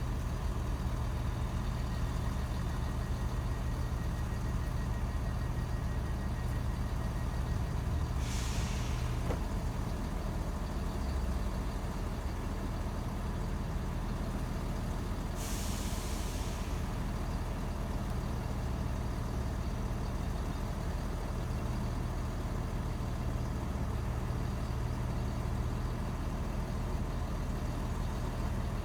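Diesel train idling with a steady low engine drone. Twice, a short hiss of released air cuts in, about a third and about halfway through, typical of its air brakes.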